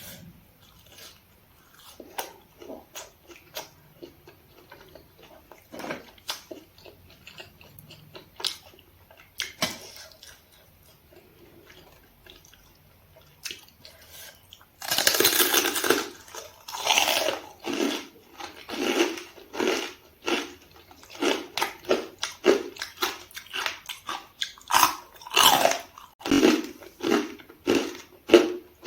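Close-miked eating: faint mouth clicks and small bites, then about halfway through a loud crunchy bite of crisp fried food, followed by steady rhythmic chewing.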